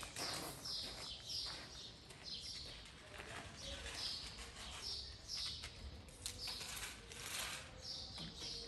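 Small birds chirping, a quick run of short, high notes repeated over and over.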